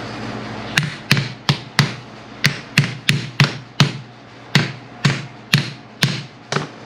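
About fourteen sharp metal taps, roughly two a second: the freshly sealed lift piston being tapped down into the Ford 1710's 3-point hitch lift cylinder.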